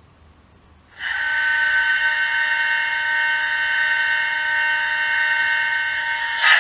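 Hornby Class 60 model locomotive's factory-fitted DCC sound decoder playing its diesel startup sequence through the model's small speaker. After about a second of quiet, a steady, high-pitched multi-tone sound starts suddenly and holds unchanged, with a brief louder burst right at the end.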